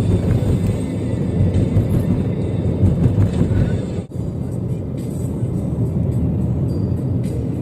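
Background music, with a low, steady rumble like a car on the road beneath it.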